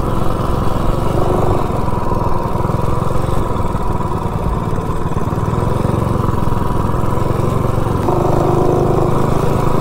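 Coleman mini bike's small single-cylinder engine running steadily while riding along, a little louder near the end.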